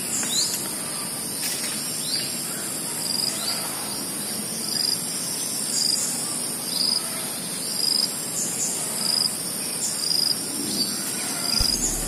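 Insects calling steadily at a high pitch, with a short high note repeating about once a second, and small birds giving quick falling chirps.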